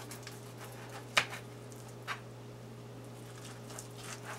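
A knife cutting through cooked barbecue spare ribs: a sharp click of the blade about a second in and a softer one about a second later, with faint scrapes, over a steady low hum.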